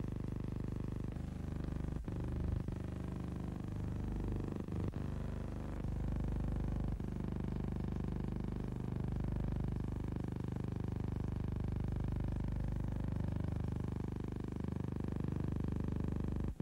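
Steady low hum with no sound of the scene itself, as on a silent newsreel transfer, with a few faint clicks in the first seven seconds.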